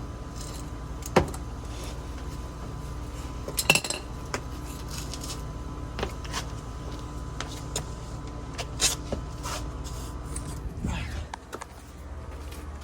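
Scattered metallic clinks and clanks of tools and bolts being handled, over a steady low hum that drops away about eleven seconds in.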